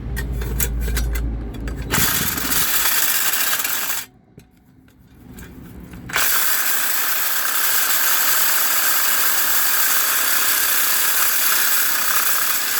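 Power tool with a cutting blade grinding through the inducer wheel's hub on the motor shaft, running steadily in two stretches with a pause of about two seconds in between. Knocks and a low rumble come before the first stretch. The cut is slow enough that he wonders whether the blade is dull.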